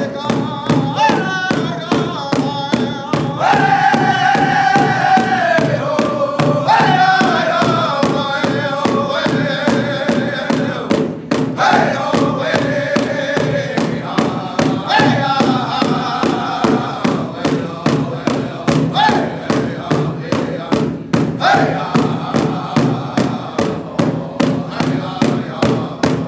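Powwow drum group singing a warm-up song, voices in descending phrases over steady unison beats on a large shared hide drum, about two beats a second.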